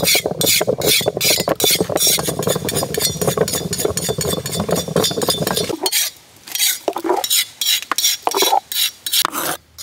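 Thick dragon fruit pulp being churned in traditional stone wet grinders and worked with wooden sticks: wet, squelching strokes about five a second. About six seconds in, these thin out to separate scrapes and slops of pulp.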